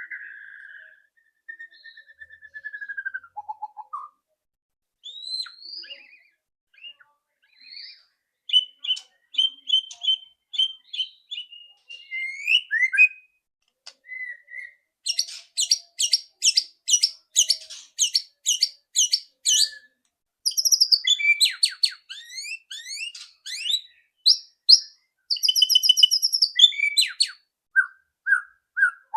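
White-rumped shama (murai batu) singing: clear whistled phrases and glides, then a run of loud, harsh rattling 'ketrekan' notes at about two a second in the middle, then a mix of quick whistles and rattles.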